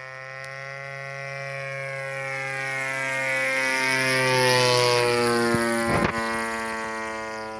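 A small engine-driven aircraft flying past overhead. Its steady engine note grows louder to a peak about four and a half seconds in, drops slightly in pitch as it passes, then fades. A brief thump comes about six seconds in.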